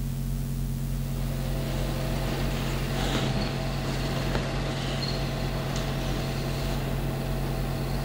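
Steady low hum with hiss and a few faint ticks, the background noise of an old film soundtrack copy.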